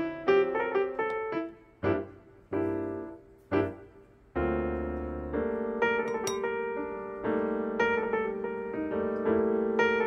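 Background piano music: a light melody of struck notes that thins to a few separate notes for a couple of seconds, then picks up again with fuller held chords about four seconds in.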